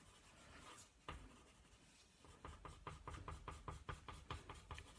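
Colored pencil scratching faintly on drawing paper: one stroke about a second in, then a quick run of short back-and-forth shading strokes, about six a second.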